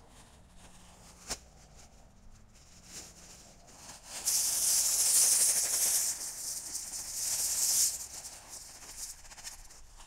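Work boots crunching and shuffling on loose gravel, a loud gritty rattle of stones for about four seconds in the middle. There is a single sharp click about a second in.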